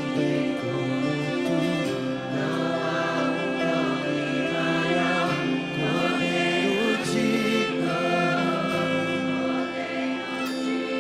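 Gospel backing-track music: choir voices over sustained chords, with no lead vocal.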